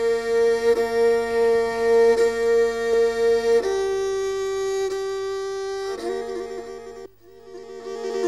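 Rabab Pesisir Selatan, the violin-like Minangkabau bowed fiddle, playing long held notes with a bow change about every second and a half. The pitch steps down a little past three seconds in, and the playing breaks off briefly near the end before starting again.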